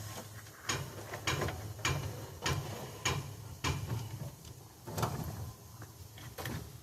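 Bundle of wiring harness being pulled and fed through a hole in a truck's dash, giving a regular series of clicks and scrapes, about one every half second, over a low hum.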